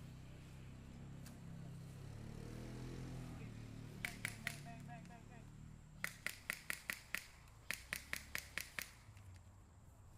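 Airsoft gun firing in quick semi-automatic strings of sharp snapping shots, about five a second: a short string of three, then six, then about seven.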